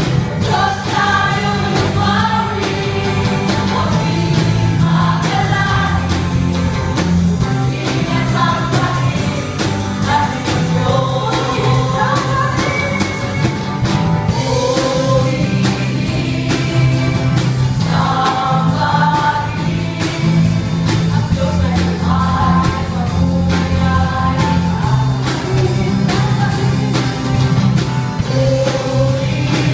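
A mixed group of men and women singing a praise song together into microphones, over amplified backing music with a bass line and a steady beat.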